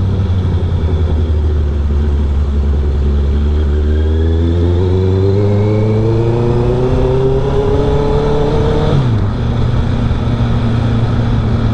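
Exhaust note of a Honda CB650R's inline-four through an R11 Villain full exhaust, heard while riding. It runs steadily, rises in pitch as the bike accelerates from about four seconds in, then drops sharply about nine seconds in.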